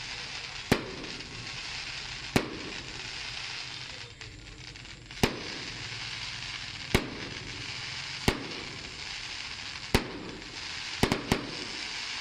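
Aerial fireworks shells bursting in a steady sequence: eight sharp bangs, about one every one and a half to two seconds, over a continuous hiss. Two bangs come in quick succession about eleven seconds in.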